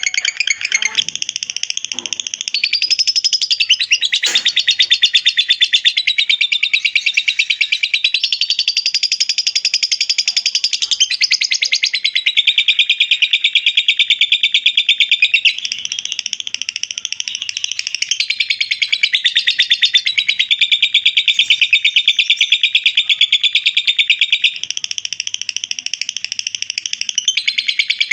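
Lovebird 'ngekek': one long, unbroken, high-pitched chattering trill of rapid notes. It shifts its pattern every few seconds without pausing for breath.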